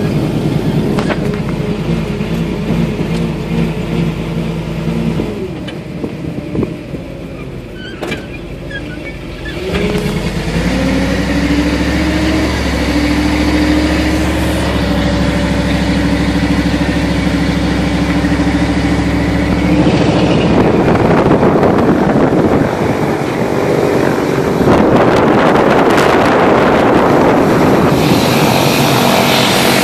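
Ford float truck's engine and hydraulic system running, heard from inside the cab. About ten seconds in, the hum rises in pitch and holds steady while the hydraulic control levers for the float trailer are worked. Some two-thirds of the way through it gives way to the loud rushing sound of a twin-turboprop Beechcraft King Air taxiing, which grows louder near the end.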